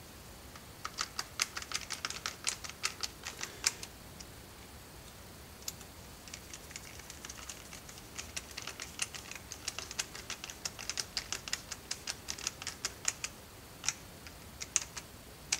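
A hand screwdriver turning in the screws that close a cordless impact driver's plastic clamshell housing. It makes quick runs of sharp clicks, about five a second, in two spells with a pause between them, then a few single clicks near the end.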